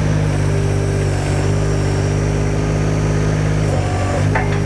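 Weedoo aquatic workboat's engine running steadily as the boat drives across the water, its note shifting briefly about four seconds in.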